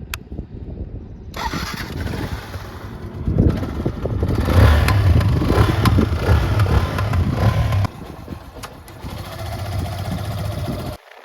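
Yamaha FZ16's single-cylinder engine running, louder from about three seconds in. The sound changes abruptly a few times.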